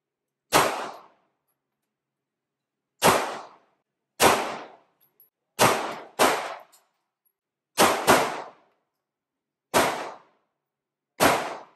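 Handgun shots in an indoor shooting range: nine single shots at uneven intervals, two of them in quick pairs. Each is a sharp crack with a short echoing tail.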